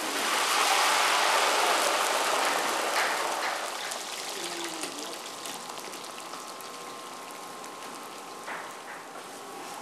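Hot oil sizzling and bubbling as food deep-fries in large pots. It is loudest for the first few seconds, then settles to a quieter steady sizzle.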